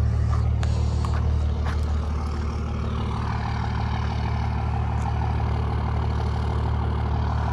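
Heavy truck's diesel engine running at low speed as the truck creeps forward, a steady low rumble. A few light clicks come in the first couple of seconds, and a higher hissing layer joins from about three seconds in.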